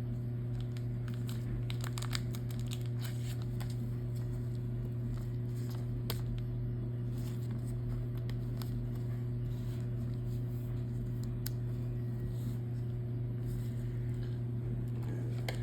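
Trading cards and their plastic wrappers being handled: intermittent crinkling, rustling and small clicks, busiest in the first few seconds, over a steady low hum.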